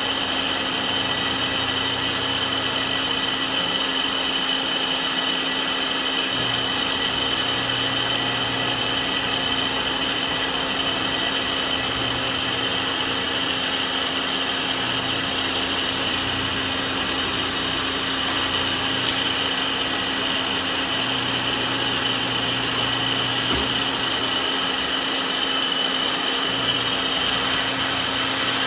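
Bench drill presses running with a steady whine while a twist drill is fed into a metal air motor housing. A low hum comes and goes in stretches of a few seconds.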